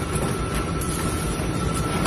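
Automatic plastic bottle blow moulding machine and its preform feed conveyor running: a steady mechanical clatter and rumble with a thin, steady high whine.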